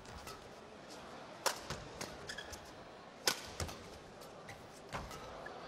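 Badminton rackets hitting the shuttlecock in a men's doubles rally: three sharp smacks about a second and three-quarters apart, with fainter clicks and short squeaks between.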